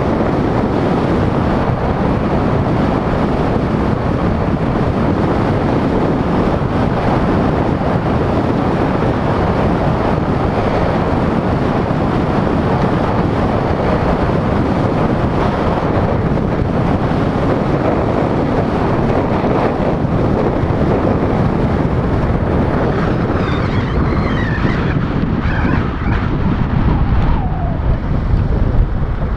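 Wind buffeting the microphone of a moving camera, a steady low rushing mixed with road and tyre noise. Near the end, as the camera slows toward stopped traffic, a few faint high squeaks come through and the rumble grows lumpier.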